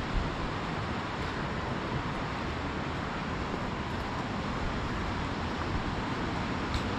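Steady, even rushing of the fast-flowing Kali (Mahakali) river, with a brief knock just after the start.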